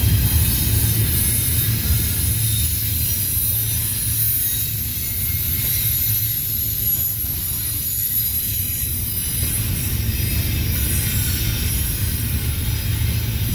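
Steady low rumble of a double-stack intermodal freight train's last container cars rolling past on the rails and moving away.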